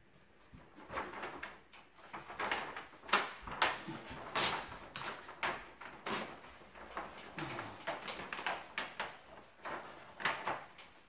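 Self-adhesive wallpaper rustling and rubbing as it is pressed and smoothed onto a ceiling by hand, in irregular strokes that start about half a second in and stop shortly before the end.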